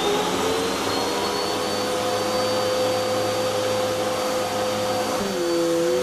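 Vax Zoom Pet 1800 W upright vacuum cleaner's slow-start motor finishing its gradual ramp-up, its rising whine levelling off about half a second in and then running steadily at full speed. Near the end the pitch dips briefly and recovers.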